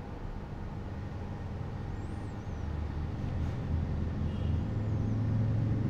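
Steady low hum, slowly growing louder, with a few faint high chirping glides.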